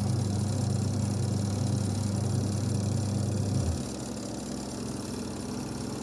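Sharp Aqua Magic twin-tub washing machine's wash motor humming steadily as the pulsator turns after repair. It cuts out a little under four seconds in, the pause of the wash cycle before the motor starts again, leaving a fainter hum.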